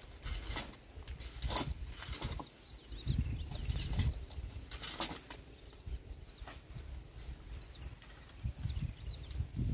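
Coconut palm fronds rustling and flapping as a climber moves about in the crown of the tree, with several sharp swishing knocks among them and gusts of wind rumbling on the microphone.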